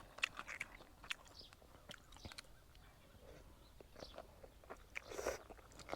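A person chewing a mouthful of spicy glass-noodle seafood salad up close, with soft wet mouth clicks scattered through. A short, louder breathy hiss comes about five seconds in.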